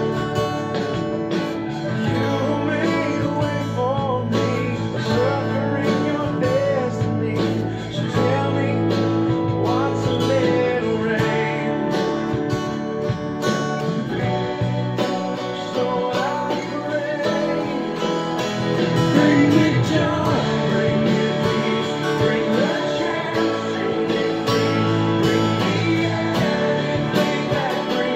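Christian worship song playing, a guitar-led instrumental passage with a wavering melody line over sustained band backing.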